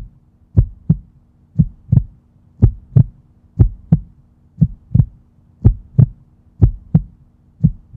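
Heartbeat sound effect: a low double thump, lub-dub, repeating steadily about once a second, over a faint steady hum.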